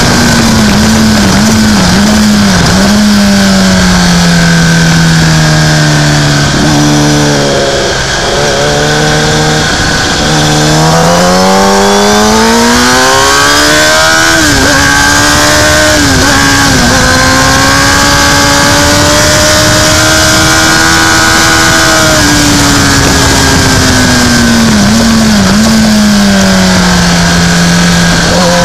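Motorcycle engine on a race track, heard onboard over a steady rush of wind: the revs fall as it slows for a corner, climb again with brief dips at gear changes, hold high, and fall once more near the end.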